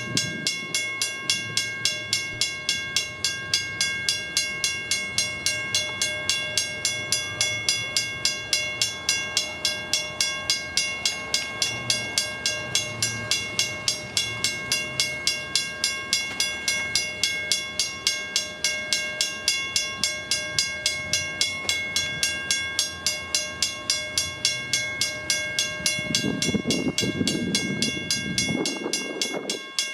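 Western-Cullen-Hayes first-generation crossing bell ringing steadily at an active grade crossing, about three strikes a second. Near the end a rougher low rumbling noise swells up under the bell.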